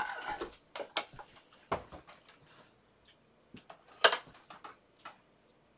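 Scattered clicks and knocks of objects being handled and moved while someone rummages for a cable, with one sharp, much louder knock about four seconds in.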